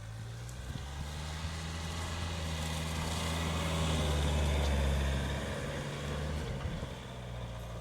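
Chevrolet Captiva 2.0 diesel engine working under load at fairly steady revs as the automatic SUV is driven at an off-road obstacle. It grows louder toward about five seconds in, then eases off.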